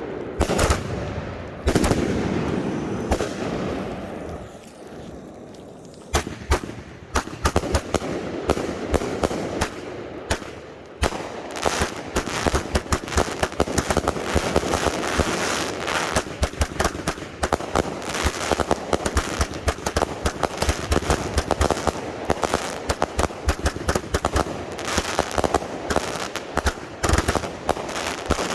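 Firework cakes firing: a few sharp bangs and a short lull, then from about six seconds in a rapid, nearly unbroken run of shots and bursting reports.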